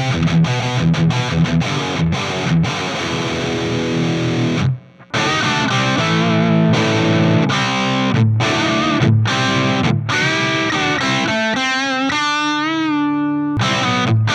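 Gibson Les Paul Custom electric guitar played through distortion: quick picked runs of notes, a brief stop about five seconds in, then single-note lead lines ending on a held high note with wide vibrato.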